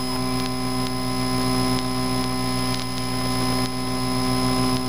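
Cessna 152's four-cylinder Lycoming engine and propeller at climb power, heard through the cockpit intercom as a steady drone: an even hum of several steady tones over a rushing noise.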